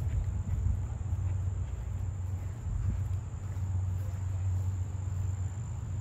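Insects trilling steadily in one unbroken high-pitched note, over a strong low rumble on the microphone.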